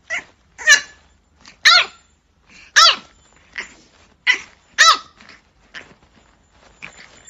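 A French bulldog puppy barking: a string of short, high-pitched yapping barks, one or two a second, some loud and some faint.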